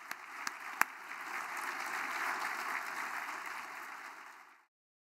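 Audience applauding, a few sharp single claps standing out at first, then the applause swelling and cutting off abruptly near the end.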